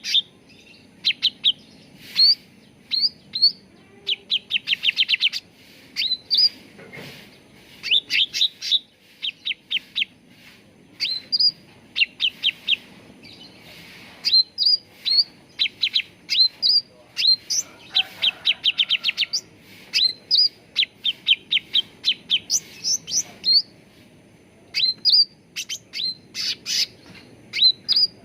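Cucak ranting songbird calling: quick runs of short, high chirping notes, several to a run, with brief pauses between runs.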